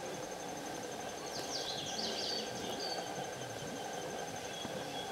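Steady high insect trill with a constant hum of background noise. A few quick, falling bird chirps and a short whistle come about one and a half to three seconds in.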